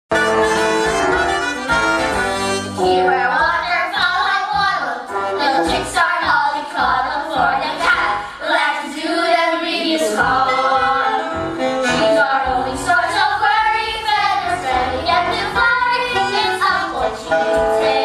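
Children singing a musical-theatre song in chorus over instrumental accompaniment.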